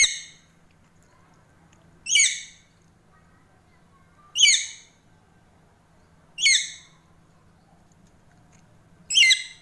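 A pet parrot giving five short, loud calls, each falling in pitch, spaced about two seconds apart.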